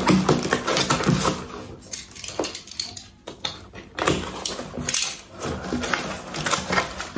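Packing tape being peeled and torn off a small cardboard box, then the box flaps pulled open near the end: scratchy ripping, scraping and rustling of tape and cardboard.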